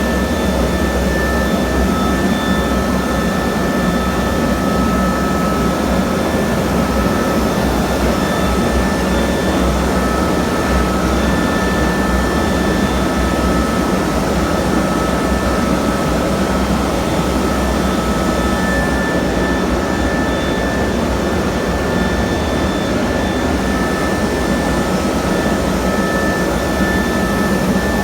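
Concrete grinding machine running steadily on a concrete slab, a continuous loud grinding noise with a low hum and a faint whine.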